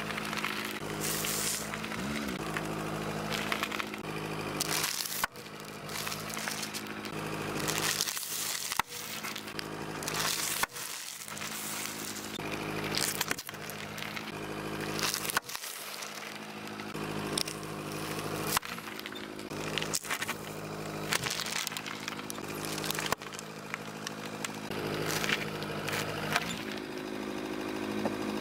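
A car's idling engine hums steadily while its tyre rolls slowly over food and plastic packaging, crushing it with crackling, crunching and squishing. The sound is several short clips joined, with abrupt cuts every few seconds.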